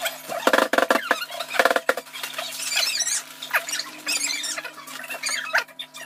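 Audio run at five times normal speed: voices shrunk into quick, high-pitched squeaky chatter, mixed with rustling and clicking from cheese being poured out of a plastic bag onto a pizza.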